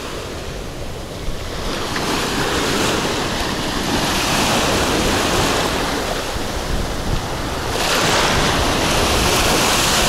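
Black Sea surf breaking and washing up on a sandy shore close by, with strong wind buffeting the microphone. The rush of the waves grows louder over the first couple of seconds and again about eight seconds in, as the foam washes right around.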